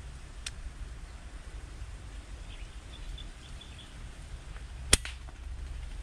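A single sharp air rifle shot about five seconds in, with a lighter click about half a second in.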